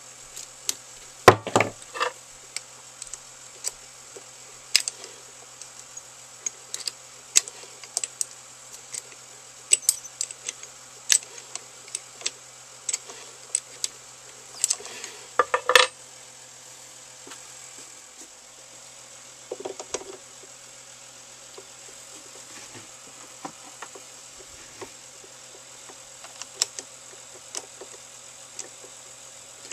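Metal clicks and clinks of a chuck key and lathe chuck jaws being worked by hand to clamp an aluminium blank. The clicks come irregularly, the loudest about a second and a half in and again about sixteen seconds in.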